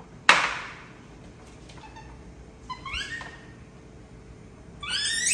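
A sharp clack just after the start as a bowl is set down on the glass tabletop, then a baby monkey's high, upward-gliding squeaky calls: a few about three seconds in and a louder quick series near the end.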